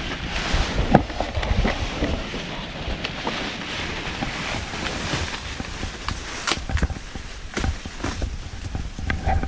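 Gusty wind buffeting the microphone in a steady rushing noise, with a few sharp knocks about a second in and again near the end.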